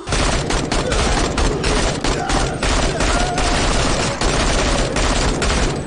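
Sustained fully automatic fire from an AK-style assault rifle. It breaks out suddenly and keeps going as one long unbroken stream of rapid shots.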